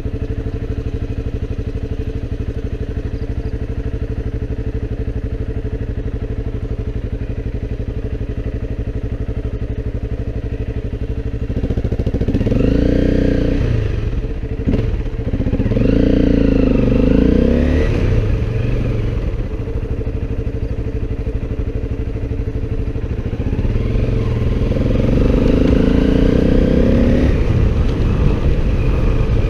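Motorcycle engine running steadily under way, then its pitch rising and falling in three spells of revving, about twelve seconds in, again around sixteen seconds, and again near the end.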